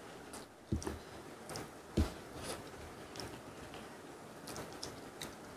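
Close-miked mukbang eating sounds: quiet chewing of braised cutlassfish and rice, with light clicks of chopsticks against bowls and two soft thumps about one and two seconds in.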